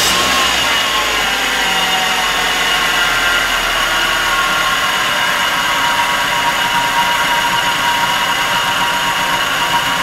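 1997 Nissan Altima's 2.4-litre four-cylinder engine idling just after start-up, loud and steady with a whine, its speed settling a little in the first couple of seconds. Even with a new distributor cap, rotor and ignition wires it still has the misfire on cylinder number 4.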